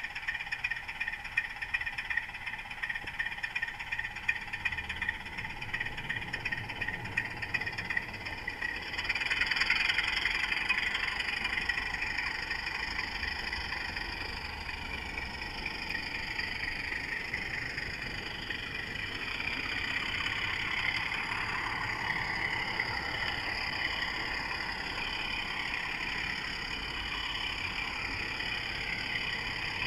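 Model diesel locomotive running along the track, heard from a camera riding on it: a steady whine from its motor and gears, with rapid clicking of the wheels over rail joints for the first several seconds. About nine seconds in, the whine grows louder.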